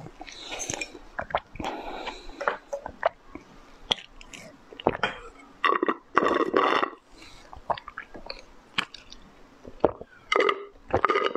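Close-miked mouth sounds of a person eating candy: chewing and biting with wet clicks and smacks, and sipping a jelly drink through a straw.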